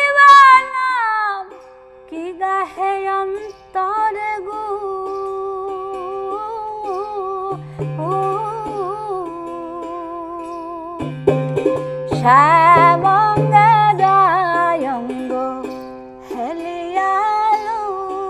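Baul song: a woman singing a melody with long, wavering held notes over the steady plucked drone of an ektara. A small duggi drum joins in for stretches, about halfway through and again later.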